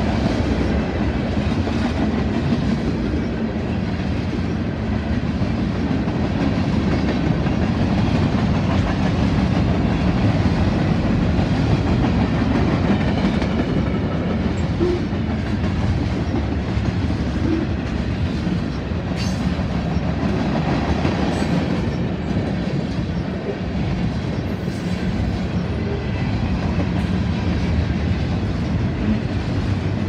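A manifest freight train's cars rolling past close by: a steady rumble of steel wheels on rail, with a few sharp clicks in the second half.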